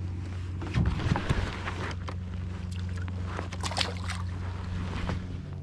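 A released largemouth bass splashing into the water beside a kayak: sharp splashes about a second in and again near four seconds, over a steady low rumble of wind on the microphone.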